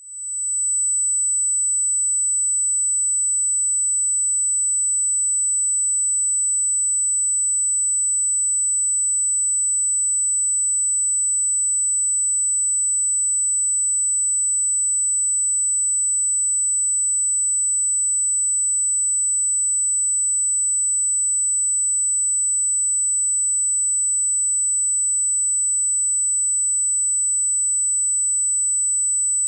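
Steady 8 kHz pure sine-wave test tone: a single bright, piercing high pitch. It fades in over about the first second, then holds at one constant level.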